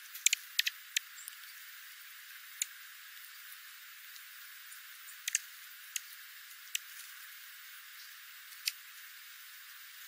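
Dark-eyed juncos pecking at seed among gravel: sharp, dry clicks, several in quick succession in the first second, then single or paired ones every second or two, over a faint steady hiss.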